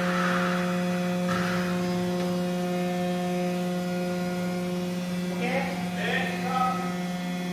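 Steady electrical hum with several fixed overtones, with a brief hiss early on and a short vocal sound about six seconds in.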